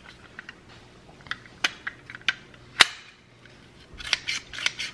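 Plastic handheld cheese grater giving a few separate sharp clicks and taps as it is handled, the loudest about halfway through. Near the end, cheese is grated on its larger blade in quick regular rasping strokes, several a second.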